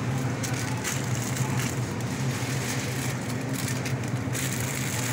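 Supermarket background noise: a steady low hum under a constant hiss, with a few faint rustles and ticks.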